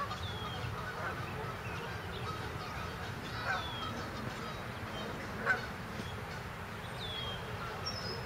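Geese on the lake honking a few short times, the loudest honk about five and a half seconds in, over steady low background noise.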